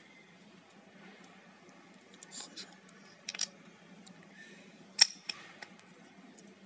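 Metal parts of a KOOZER MF480 rear bicycle hub clicking and knocking together as the freehub body is slid onto the axle and seated in the hub shell: a few scattered clicks, with one sharp, much louder clack about five seconds in.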